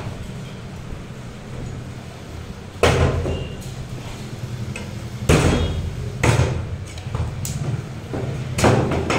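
Butcher's cleaver chopping through raw chicken: five sharp chops, irregularly spaced, the first about three seconds in.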